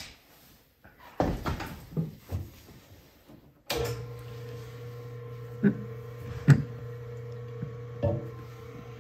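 Knocks and handling thumps at an electric potter's wheel, then about four seconds in the wheel's motor starts and runs with a steady hum. A few sharp taps sound over the hum.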